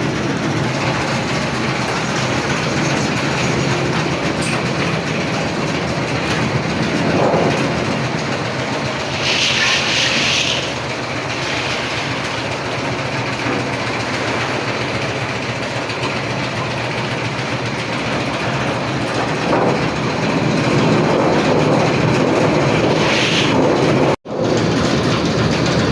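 Papad-making machinery running with a steady, loud clattering rattle. A short hiss comes in about nine seconds in and again near the end, and the sound drops out for an instant just before the end.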